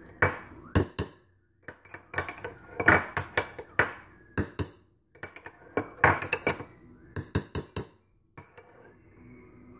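A metal spoon clinking and knocking against a stainless steel mixer jar while a lump of butter is spooned in with other batter ingredients: quick runs of sharp clinks in several bursts, stopping shortly before the end.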